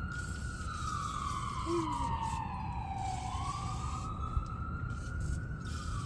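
An emergency vehicle's siren wailing, its pitch sliding slowly down and then back up over a few seconds, over a steady low background rumble.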